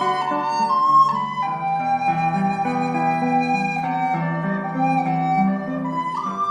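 Background music: a flute-like melody of held notes over a soft sustained accompaniment.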